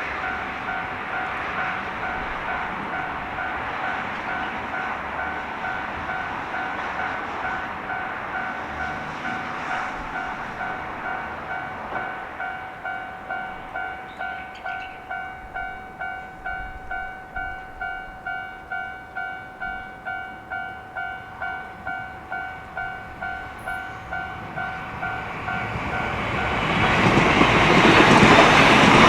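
Japanese level-crossing warning bell ringing its two-tone "kan-kan" at a steady, even beat. Near the end the bell stops, and a train passes the crossing close by, much louder.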